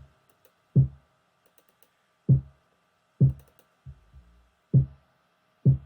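Soloed kick drum playing back in an uneven afrobeat pattern: six deep, short thumps that each drop in pitch and die away quickly. An EQ band is set around 500 Hz and still leaves the full kick sound.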